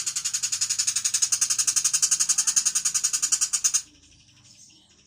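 Tiger shrike giving a harsh, rapid rattling chatter of about seven pulses a second, which stops abruptly about four seconds in; faint chirps follow.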